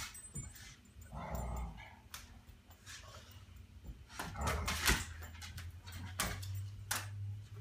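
A Bulldog puppy and an American Mastiff at rough play: a couple of short play barks, the louder one about halfway through, among scuffling and sharp knocks of paws and bodies.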